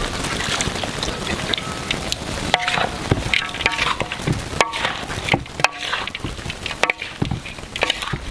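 Wooden spatula stirring and tossing shrimp and vegetables in a large iron wok. It scrapes and knocks against the metal, which rings briefly after some of the knocks, over a steady crackling hiss from the food.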